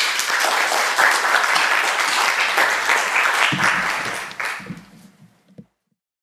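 Audience applauding after a talk, a steady patter of many hands that thins out after about four and a half seconds and then cuts off abruptly.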